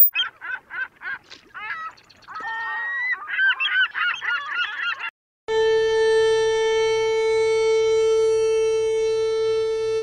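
Geese honking, a quick run of calls for about five seconds. Then, after a brief gap, a violin bowing one long steady note.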